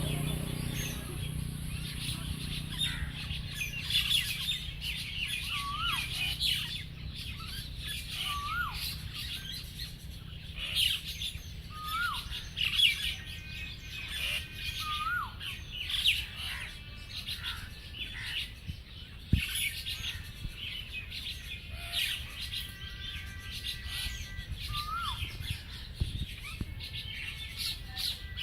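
Birds chirping, many short high chirps, with one short hooked whistle repeated every two to three seconds.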